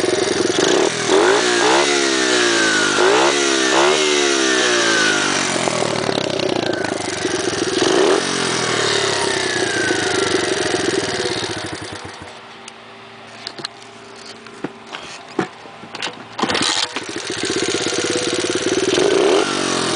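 Chinese 110cc pit bike's four-stroke single-cylinder engine revved with repeated throttle blips, then running steadily. About twelve seconds in it falls much quieter, with scattered clicks and knocks, and it comes back loud for the last few seconds with another rev near the end.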